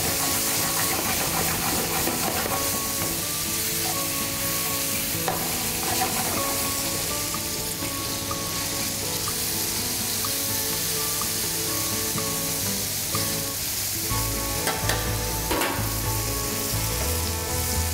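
Diced zucchini and yellow squash sizzling in hot oil in a saute pan, turned with tongs now and then, with a few light clicks near the end. Background music plays underneath.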